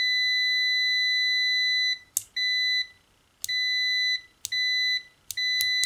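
Homelylife HT126B multimeter's continuity beeper in manual mode, sounding as the test lead tips touch. It gives one steady high beep for about two seconds, then a string of shorter beeps as the tips are tapped together, with small clicks of the metal tips making contact. The meter responds quickly in this mode.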